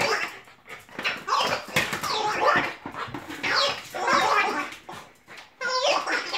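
Giggle Ball dog toy, its noise-making tubes letting out a run of warbling, giggle-like squeals that slide up and down in pitch as the dogs push and roll it.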